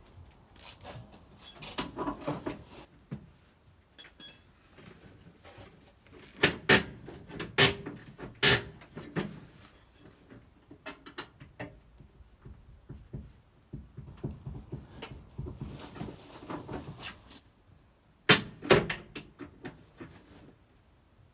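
Hand tools at work on a car's rear subframe: clattering and scraping with several sharp knocks, the loudest in a cluster about six to nine seconds in and a pair near eighteen seconds in.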